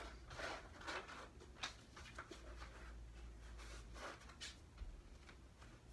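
Faint, soft rustles and light taps of a person shifting on a yoga mat, changing sides from one lunge to the other, over a low steady hum.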